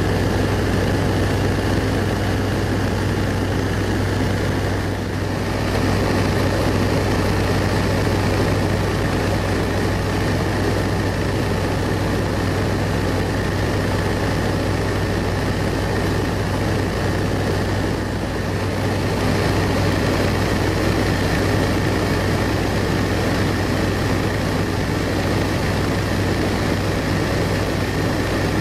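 Antonov An-2's nine-cylinder radial engine and propeller at cruise, heard inside the cabin as a loud, steady drone.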